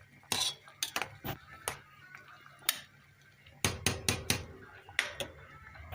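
Kitchen utensils clinking and knocking against dishes and a pan in a quick irregular series of sharp hits, with a denser run of knocks about two-thirds of the way through.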